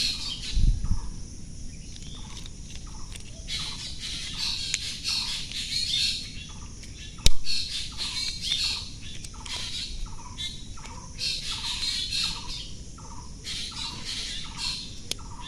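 Birds calling in the background: a short falling call repeated about twice a second over higher chirping, with one sharp click about seven seconds in.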